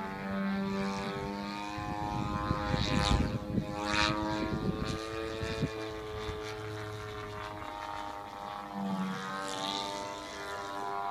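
Engine and propeller of a Hangar 9 Extra 300 radio-control aerobatic plane droning steadily in flight, the pitch shifting slightly as it manoeuvres. A rough low rumble comes and goes for a few seconds near the middle.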